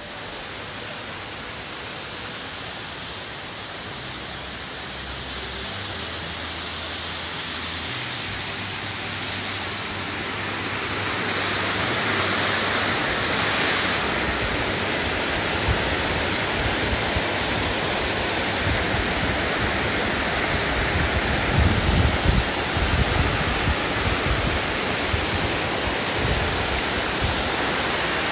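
Amicalola Falls, a tall cascading waterfall, rushing steadily, growing louder over the first dozen seconds as it is approached. A few low bumps on the microphone come about three quarters of the way through.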